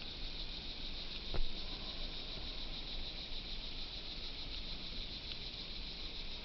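Steady outdoor background with a high, even insect chorus, broken by one sharp click about a second and a half in.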